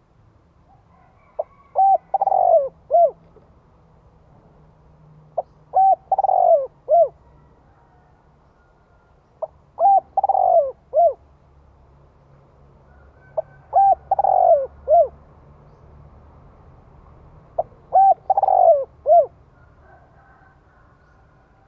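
Spotted dove cooing: the same multi-note phrase repeated five times, about every four seconds. Each phrase is a few short clipped coos around one longer, falling coo.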